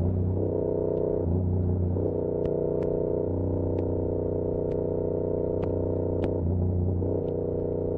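Yamaha R7 motorcycle's 689 cc parallel-twin engine running through an SC-Project CR-T exhaust at a fairly steady pace, its note shifting a few times, heard muffled from a backpack. About seven sharp, irregular ticks from the bag's straps slapping against the bag.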